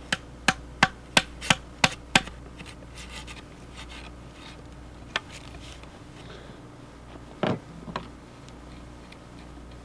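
Wood chisel being driven into a log while cutting a square notch: seven sharp knocks in quick succession, about three a second, then quieter scraping as the chisel pares the wood, a single knock, and near the end a duller, longer knock.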